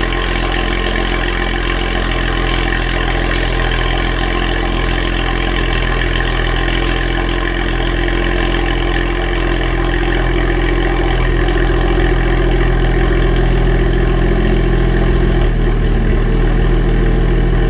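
2007 BMW 335i's twin-turbo inline-six idling steadily after a cold start, through catless downpipes with the rest of the exhaust stock. The idle note shifts slightly about 15 seconds in.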